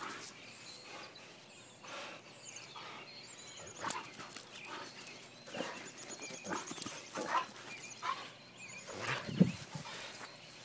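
Doberman playing tug-of-war on a leash, giving short dog vocal sounds amid scuffling and jostling noises. The loudest is a low sound about nine seconds in.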